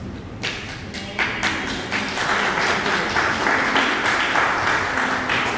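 Audience applause: scattered claps about half a second in, swelling into steady clapping by many people.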